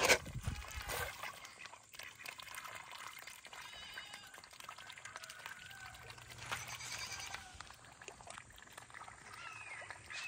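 White domestic ducks dabbling in a pond, the water sloshing and lapping around them, with a few short faint animal calls. A brief loud bump comes right at the start.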